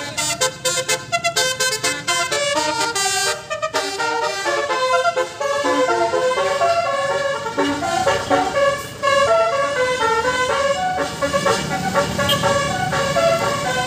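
Indonesian 'telolet basuri' bus horn, a set of multi-trumpet musical air horns, playing a fast tune note after note, stepping up and down in pitch. A low steady rumble runs beneath.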